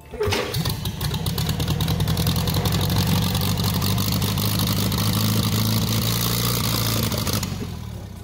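1947 Farmall B's four-cylinder overhead-valve engine catching right away and running fast and steady on a seized throttle that holds it wide open, then dying down near the end.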